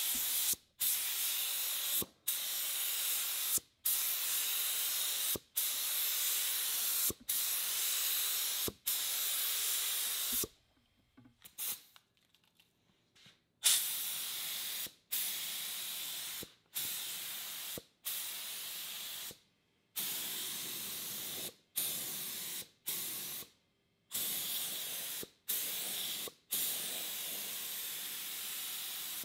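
HVLP gravity-feed spray gun spraying thinned primer: a hiss of air and atomised paint in repeated passes of about a second to a second and a half each, cut off sharply as the trigger is released between strokes. A break of a few seconds falls near the middle.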